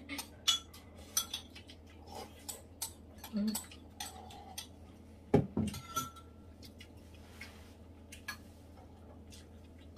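Metal chopsticks and a spoon clicking and clinking against porcelain bowls during a meal. About five seconds in there is a louder knock as a bowl is set down on the table.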